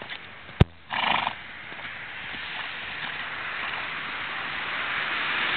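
Faint hoofbeats of a ridden horse on a dirt paddock under a rushing noise that grows steadily louder, typical of wind on the microphone. A sharp click comes about half a second in, and a short loud burst follows just after.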